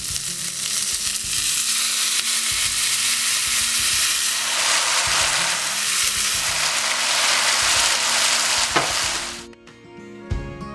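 Sauce poured onto food in a very hot grill pan, sizzling loudly and steadily, the sizzle cutting off abruptly about nine and a half seconds in. Soft plucked guitar music starts near the end.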